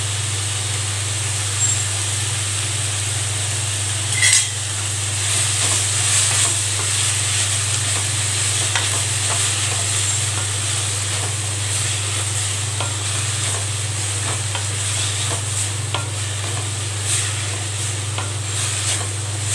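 Shredded cabbage, carrot and onion sizzling in a non-stick wok while a wooden spatula stirs and scrapes them, with many small scraping ticks over a steady low hum. One louder knock comes about four seconds in.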